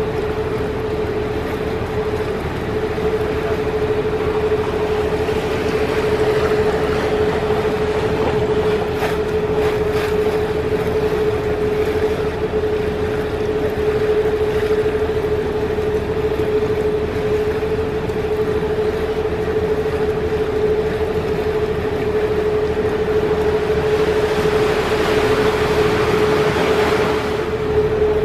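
Canal tour boat's motor running steadily with a constant whine, heard from on board. The rush of motor and water grows louder near the end.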